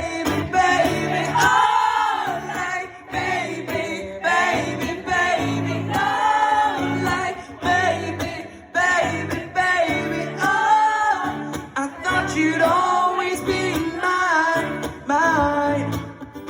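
Live pop song performance: voices singing a melody over strummed acoustic guitar chords.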